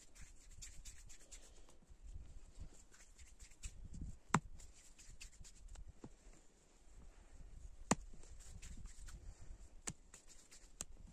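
Hands rolling and shaping soft bread-dough balls in a bed of flour: faint rubbing and patting, with a few sharp clicks, the loudest about four seconds in and another near the eight-second mark.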